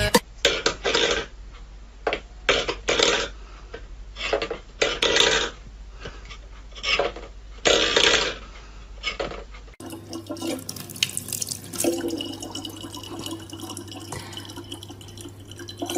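Metal pet bowls scraping and clattering on a wooden floor in about ten short bursts. Then, about ten seconds in, a faucet runs a thin steady stream of water into a plastic bottle.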